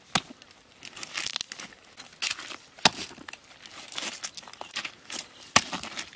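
River pebbles crunching and clattering as a hand scrapes them aside, with large stones set down among them. Three sharp clacks of stone on stone stand out: just after the start, near the middle and about five and a half seconds in.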